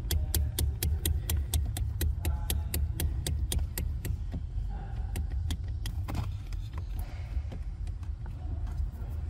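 A 2021 Toyota Hilux's steering column being shaken by hand under the dash, giving quick metallic clicking knocks, about five a second at first, then fewer, with one stronger knock near the middle. The knocking is the sign of play in the steering column, a recurring defect on this Hilux generation.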